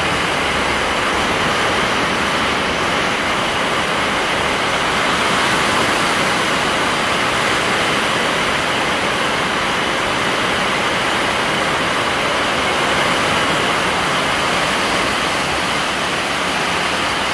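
Heavy rain pouring down in a storm: a loud, steady, even rush.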